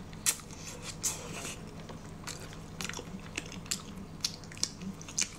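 Close-miked wet chewing and lip-smacking of a person eating soft braised meat, with sharp mouth clicks at irregular intervals, roughly twice a second.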